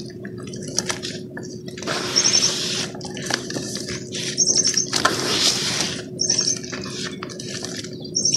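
Wet cement being squeezed and crumbled by hand in water in a plastic tub: irregular sloshing, squelching splashes in bursts. A bird gives short rapid chirp trills, several times, about two seconds apart.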